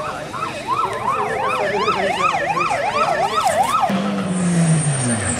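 Emergency vehicle siren on a fast rising-and-falling yelp, about three cycles a second; it cuts off near the four-second mark. It gives way to a car engine whose pitch drops steadily.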